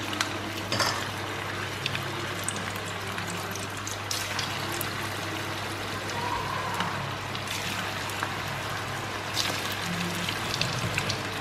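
Spinach pakoda batter deep-frying in hot oil in a kadai: a steady bubbling sizzle with scattered crackles and pops.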